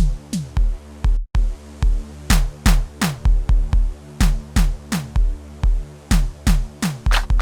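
Electronic drum-machine beat playing back, a sgubhu-style track built from an amapiano sound pack. Dense, syncopated kick drums with bass hits that drop in pitch sit over a held low tone, with sharp clicky percussion on top. It cuts out briefly about a second in.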